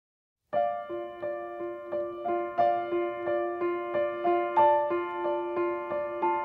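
Instrumental song intro on a piano-like keyboard: a repeating figure of single notes, about three a second, starting about half a second in.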